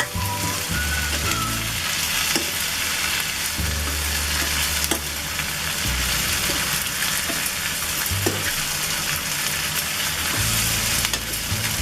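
Okra, onions and spices sizzling in hot oil in a kadhai while being stirred and mixed with a spatula, with a few sharp taps and scrapes of the spatula against the pan.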